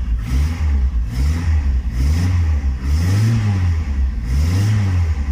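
Chrysler Stratus engine, heard from inside the cabin, revved in about five short blips, its pitch rising and falling with each one. Only the engine is heard, with no belt squeal: the worn accessory belt has been replaced.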